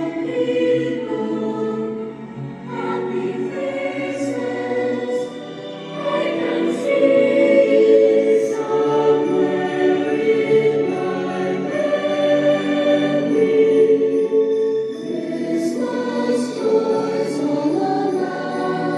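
A choir singing, holding long sustained notes.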